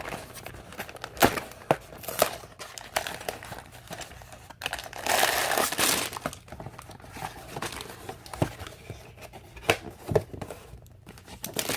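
Plastic bags of Lego parts being handled, crinkling and rustling, with sharp taps and clicks and a longer stretch of crinkling about five seconds in.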